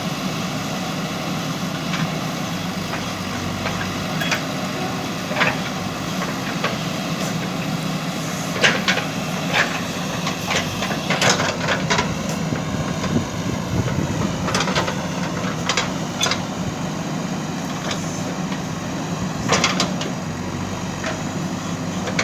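A JCB machine's diesel engine running steadily, with scattered sharp knocks and clanks, several of them grouped about nine seconds in, around eleven to twelve seconds in, and near the end.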